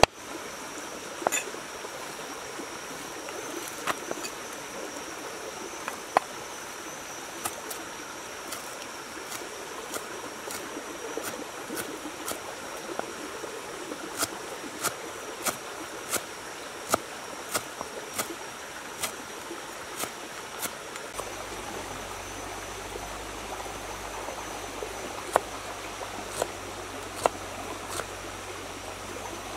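Cleaver chopping on a wooden chopping block: single sharp knocks, spaced a second or two apart and coming quicker in the middle, over a steady rush of running stream water.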